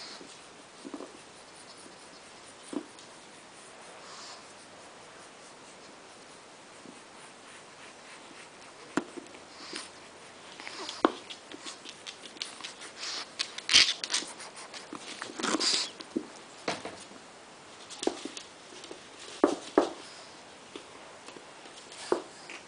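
A pug puppy and an adult pug playing on a wooden floor: the puppy mouths and chews a plastic toy amid sniffing and the clicking and scrabbling of paws. It is quiet at first, then becomes a busy run of short clicks and brief noisy bursts from about nine seconds in, loudest around the middle.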